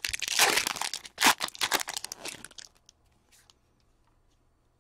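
Foil wrapper of a 2014-15 Fleer Ultra hockey card pack being torn open and crinkled, in a dense run of rips over the first second and a few more through the next second and a half. After that there are only faint ticks of cards being handled.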